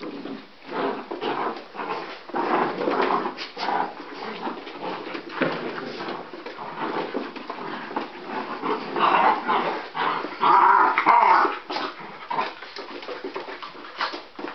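A litter of young puppies playing together and making small vocal noises, loudest about nine to eleven seconds in, amid short clicks and scuffles.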